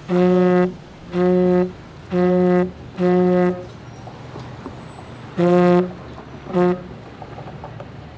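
Vuvuzela blown in Morse code: four long blasts about a second apart, then after a pause one long blast and one short one. Each blast is a single steady note.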